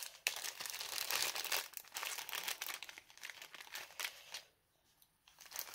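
Thin clear plastic bag crinkling and rustling as it is handled and pulled open, busiest and loudest in the first three seconds or so, then in a few short bursts with a brief burst near the end.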